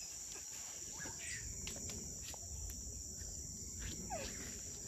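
Steady high-pitched chorus of insects shrilling without a break, with a few faint clicks.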